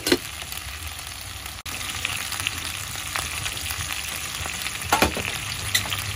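Curry-seasoned chicken feet sizzling as they fry in a metal pot, a steady hiss broken by a few sharp clicks.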